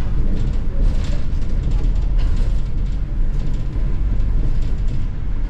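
Steady low rumble of a moving double-decker bus's engine and road noise, heard from inside the bus, with brief rattles about one and two seconds in.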